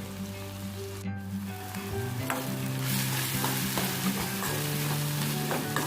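Chopped onions sizzling as they fry in oil in a pan, with a spoon stirring through them and clicking against the pan. The sizzle grows louder about two to three seconds in. Background music plays under it with steady held notes.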